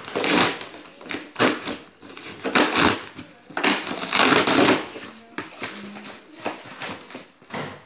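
Cardboard shipping box being torn open by hand: a run of loud rips and crunches as the flaps are pulled apart, smaller ones in the last few seconds.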